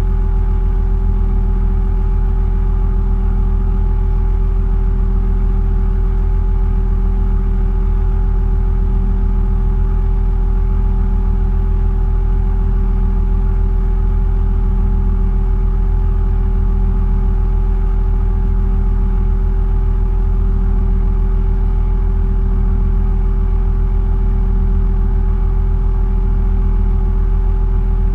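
Heavy machine's engine running steadily, heard from inside its cab: an even low rumble with a constant whine over it.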